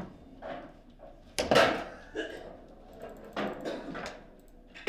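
Scattered knocks and clunks from a table football table while the ball is out of play after a goal. The loudest comes about a second and a half in, with several lighter knocks after it.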